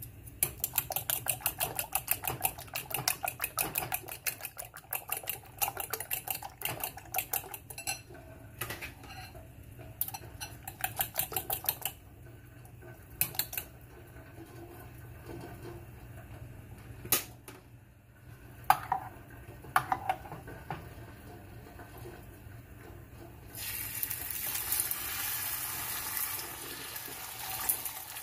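A fork beating eggs in a glass bowl, with rapid, even clinking against the glass, then slower, scattered taps. Near the end the beaten egg goes into a hot nonstick pan and a steady sizzle starts.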